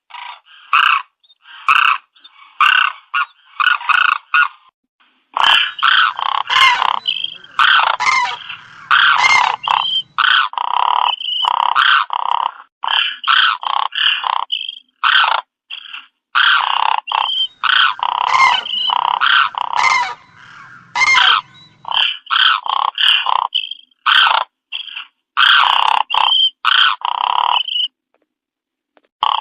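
Cranes calling: a rapid, repeated series of rolling, croaking calls, over and over, with brief pauses between runs.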